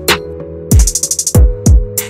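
Background electronic music with a drum-machine beat: deep kicks that drop in pitch over held synth chords, with a quick roll of hi-hats about a second in.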